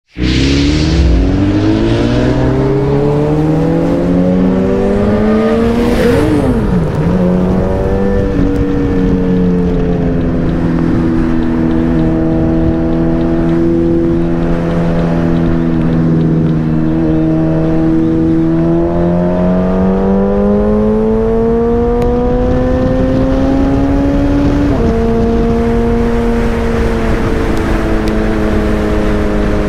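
Suzuki Hayabusa's inline-four engine under way: rising in pitch as it accelerates, a quick dip and recovery about six seconds in, a steady cruise, then climbing again before the pitch drops abruptly, as at a gear change, near 25 seconds. A low rumbling noise runs underneath.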